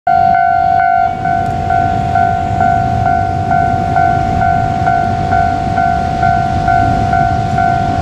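Railway level crossing warning bell ringing in even strokes, about two a second, as the barrier arms lower. A low rumble runs underneath.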